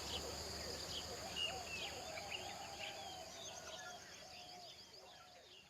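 Rainforest ambience: insects droning steadily while birds chirp, whistle and call over them, the whole fading out toward the end.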